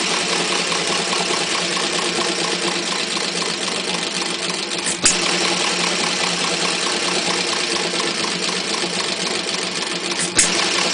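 A 1/3-scale Tochtrop model of an Economy hit-and-miss engine running with buzz-coil ignition: a steady, rapid mechanical clatter as the flywheels carry it through its miss cycles. A single sharp bang about five seconds in and another near the end are its firing strokes.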